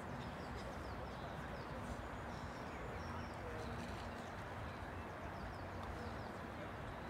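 Outdoor ambience: a steady low noise with faint, high bird chirps scattered throughout.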